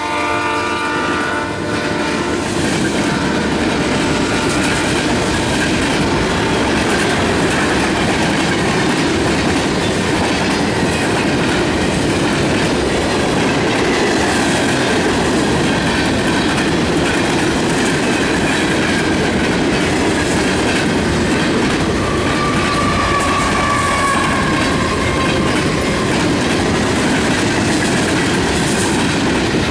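Canadian National mixed freight train rolling past, its cars clattering steadily over the rail joints. The last of a locomotive horn blast dies away in the first second or two, and a faint high wheel squeal comes in briefly past the middle.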